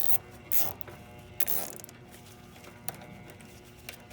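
Plastic cable tie being pulled tight around a bundle of wires, its teeth ratcheting through the lock in two quick zips, about half a second and a second and a half in, followed by a few light clicks.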